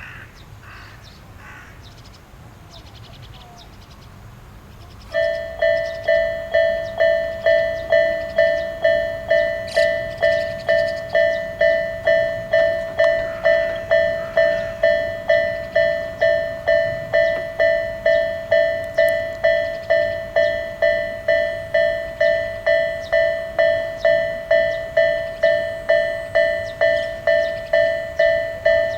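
Japanese railway level-crossing alarm of the Isesaki type, starting about five seconds in: an electronic two-tone ding repeating steadily a little under twice a second.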